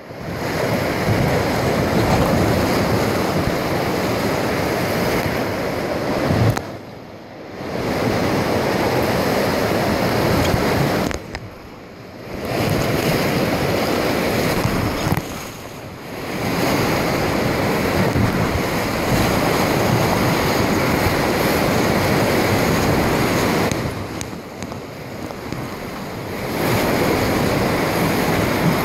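Whitewater river rapids rushing steadily, with wind buffeting the microphone. The noise drops away briefly four times.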